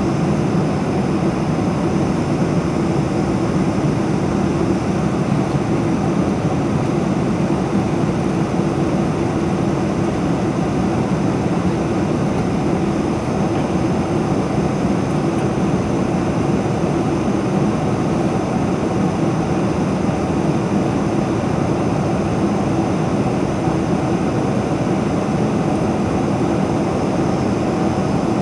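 Steady cabin noise of a Boeing 747-400 in its climb after takeoff: the even rush of its four turbofan engines and the airflow along the fuselage, heard from inside the cabin behind the wing, with no change throughout.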